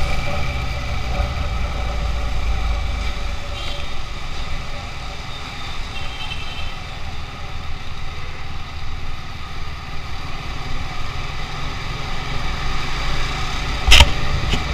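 Motorcycle engine running steadily while riding along a city road, with road and traffic noise. A single sharp knock comes near the end.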